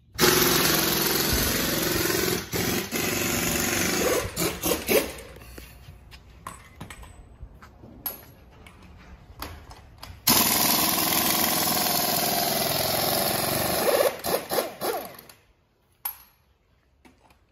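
A pneumatic shop tool runs in two long, loud stretches, each ending in a few short trigger bursts before it stops, with quieter workshop noise in between.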